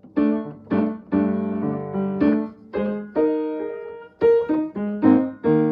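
Piano playing an instrumental interlude of a hymn tune: struck chords about twice a second, each ringing and fading before the next.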